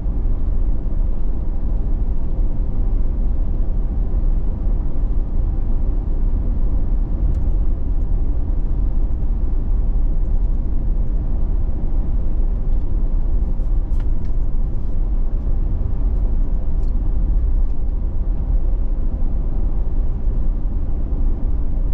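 Steady low rumble of a vehicle cruising at road speed, heard from inside the cabin: engine hum mixed with tyre and road noise. A few faint clicks come through near the middle.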